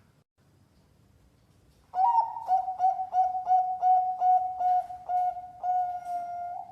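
Zebra dove (perkutut) cooing. After about two seconds of quiet comes one song phrase: a higher opening note, then a quick run of short repeated notes at about three a second, ending in a longer held note near the end.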